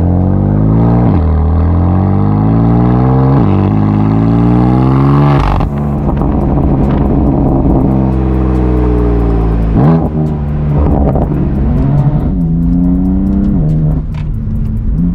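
A BMW M4 CS's twin-turbo straight-six runs through an Akrapovic titanium exhaust, accelerating hard. Its dual-clutch gearbox makes quick upshifts, each a sudden drop in pitch. About five and a half seconds in, the driver lifts off and the exhaust crackles and pops for a few seconds, then the engine pulls again through more upshifts.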